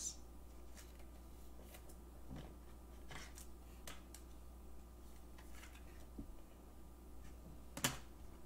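Faint rustles and a few soft clicks of trading cards and their packaging being handled, with one sharper click near the end.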